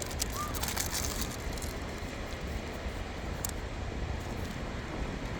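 Steady wind rumbling on the microphone outdoors at the beach, with a few faint clicks in the first second or two.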